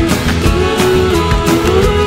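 Background music with a steady beat and a melody line, and no singing.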